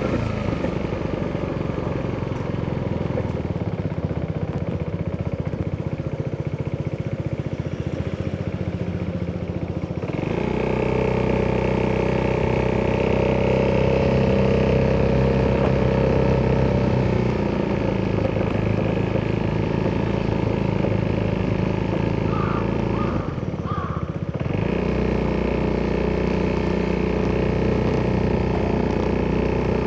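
Italjet Dragster 200 scooter's single-cylinder four-stroke DOHC engine running through an Akrapovic exhaust while riding. It pulls louder and steadier from about a third of the way in, with a brief drop in engine sound about three quarters through.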